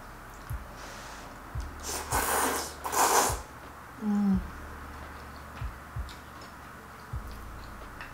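Two loud slurps of thick udon noodles in curry sauce, about two and three seconds in, followed by a short hummed "mm". Soft low knocks are scattered through the rest.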